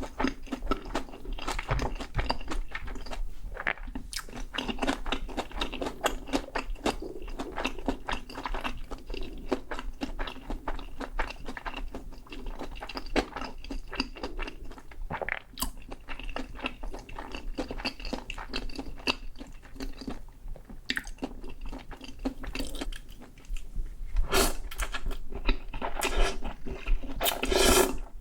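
A person chewing crunchy food close to the microphone, with a steady stream of wet crunches and crackles. The crunching grows louder and denser near the end.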